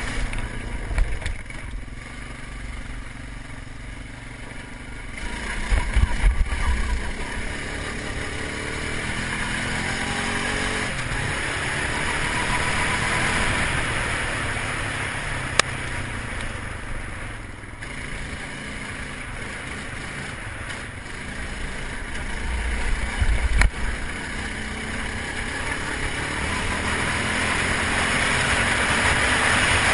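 Quad ATV engine running under way on a dirt trail, its pitch rising and falling as the rider speeds up and eases off. Twice there is a stretch of heavier low rumble.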